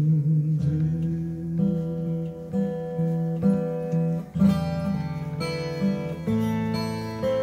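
Acoustic guitar strummed in a steady rhythm during an instrumental passage of a live song, with the chord changing twice. A held sung note dies away within the first second.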